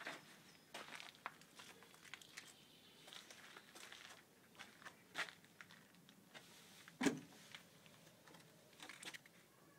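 Faint, scattered rustling and clicking from someone moving around and handling close to a fabric boat cover, with one louder, duller thump about seven seconds in.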